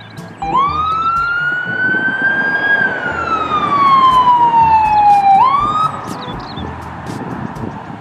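Ambulance siren wailing: the pitch rises, falls slowly over a few seconds, then starts rising again and breaks off about six seconds in. Road noise from passing traffic runs underneath.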